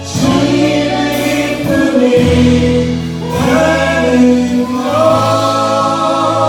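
Church praise team choir singing a worship song in long held notes, moving through a few chord changes and settling on one sustained chord about five seconds in.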